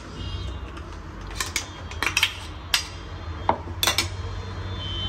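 A steel spoon clinking and scraping against a stainless-steel mixer-grinder jar as cucumber paste is scooped out: a run of short, sharp metallic clinks over a low steady hum.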